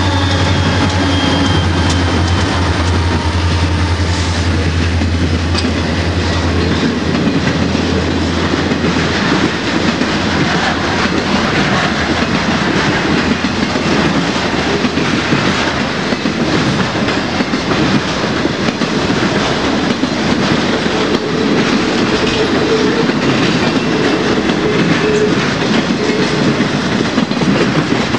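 Conrail diesel locomotives pass close by with a heavy low engine drone that fades away over the first several seconds. Then comes the steady rumble and clickety-clack of piggyback trailer flatcars rolling past on the rails.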